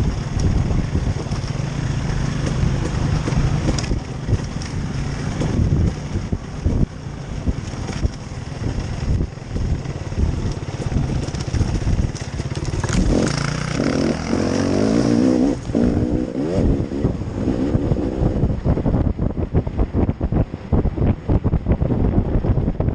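Small engine of an off-road vehicle running, its pitch rising and falling as it revs about two-thirds of the way in. Frequent knocks and rattles become dense near the end.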